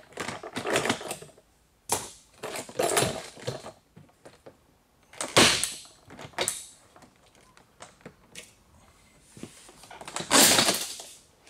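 Plastic retaining clips of a Peugeot 607 door trim panel popping loose as the panel is prised and pulled off the door. A series of sharp cracks and rattles, the loudest about halfway through and again near the end.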